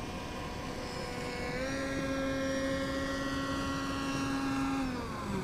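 Electric motor and pusher propeller of a small foam R/C plane in flight (E-max CF2822 brushless motor): a steady buzzing whine with several pitches. It steps up in pitch about one and a half seconds in as the motor speeds up, holds, then falls in pitch near the end as the motor slows.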